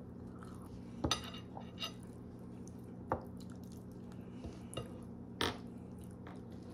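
Food being picked apart by hand on a ceramic dinner plate, with about five short clicks and clinks of fingers and food against the plate, the sharpest about a second in and near the end. A steady low hum runs underneath.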